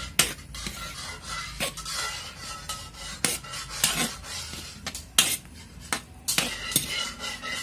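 Metal spatula scraping and clinking against a large metal wok while stirring chicken pieces and squid balls, in irregular strokes with a sharp clank every second or so.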